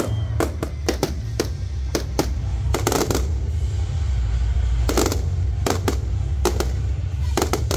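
Fireworks display: many sharp bangs and cracks from bursting shells, coming every fraction of a second, over music with a heavy, steady bass.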